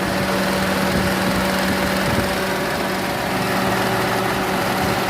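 2004 Mitsubishi Lancer MX engine idling with the air conditioning on. Under a steady hum there is an uneven low pulsing, the engine still misfiring.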